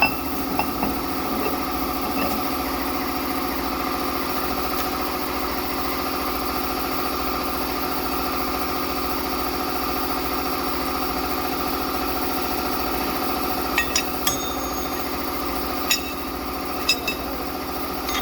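Steady machinery hum made up of several constant tones. Near the end come a handful of sharp metallic clicks and clinks, as of parts or tools being handled.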